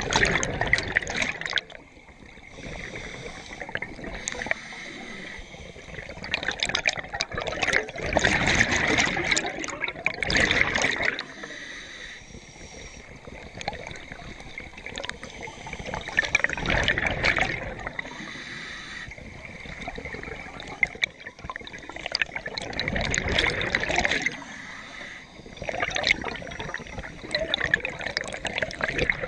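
Scuba regulator exhaust bubbling underwater in several bursts of a couple of seconds each, one per exhalation, with quieter stretches between breaths.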